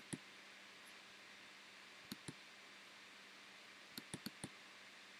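Near silence with faint room hiss, broken by soft clicks of the camera's buttons being pressed to zoom in: two at the start, two about two seconds in, and a quick run of four about four seconds in.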